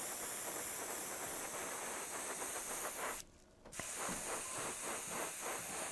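Steady hiss of air from an airbrush compressor setup, cut off briefly about three seconds in.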